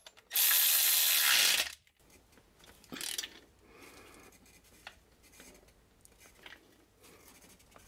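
Cordless electric ratchet runs for about a second and a half, driving a transmission bell housing bolt home. Faint clicks and tool handling follow as a hand ratchet is worked on the bolt.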